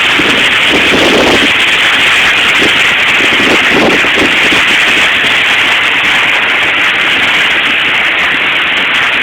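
Typhoon wind and rain: a loud, steady rushing noise, swelling briefly in a few lower gusts about a second in and again around three to four seconds in.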